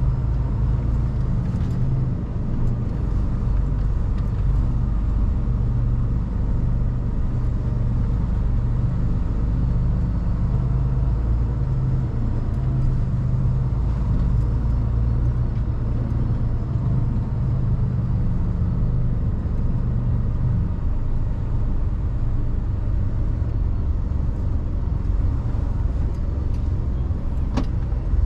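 Mercedes Actros truck's diesel engine running steadily, heard from inside the cab, with a low hum and one sharp click near the end.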